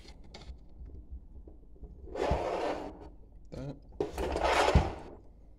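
Standoffs being fitted by hand to a mounting plate propped against a wooden board: two rubbing, scraping sounds about a second long, about two and four seconds in, each with a dull knock.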